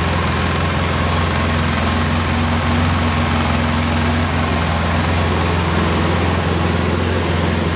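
Polaris Sportsman 700's liquid-cooled twin-cylinder engine idling steadily and quietly, running properly after a head gasket replacement, with no exhaust leak at the header pipe.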